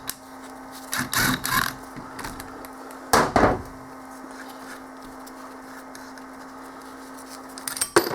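Metal parts of a pulley puller being handled and knocked together: a few short clunks and rattles about a second in, around three seconds in and again near the end, over a steady low hum.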